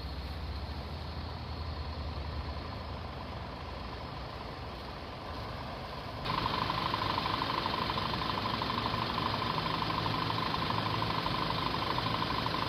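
A low rumble, then about halfway through a louder steady mechanical drone with a humming tone sets in.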